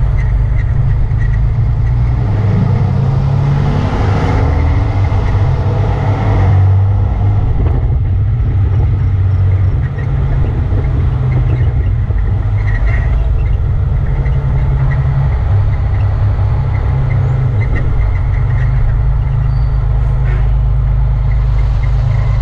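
Ford L-9000 fire truck driving slowly, its engine and road noise making a steady low rumble. The sound swells about two seconds in and eases off again after a few seconds.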